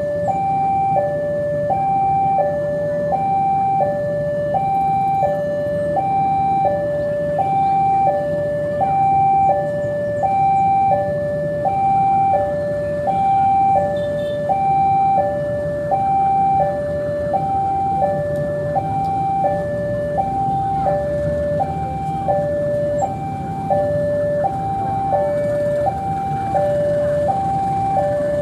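Railway level-crossing warning alarm sounding a steady electronic two-tone high-low pattern, about one high-low cycle a second, over the low rumble of a diesel locomotive pulling a passenger train slowly past.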